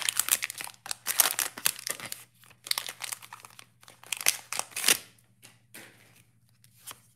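The foil wrapper of a trading-card pack being torn open and crinkled by hand: a dense run of crackling and tearing that dies down after about five seconds, as the cards are slid out.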